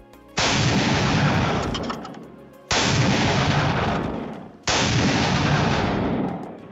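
AI-generated rifle gunfire sound effect: three loud blasts about two seconds apart, each starting suddenly and fading out over about two seconds.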